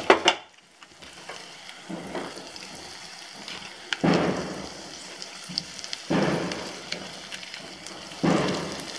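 Stuffed mushrooms sizzling in masala in a hot kadhai. The sizzling surges suddenly and then fades about every two seconds, four times, as chopped mushroom stems and paneer cubes are tipped into the pan.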